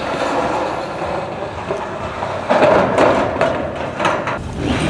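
Corrugated metal roofing sheets rattling and scraping as they are handled and laid on a roof, with a run of sharp knocks about halfway through.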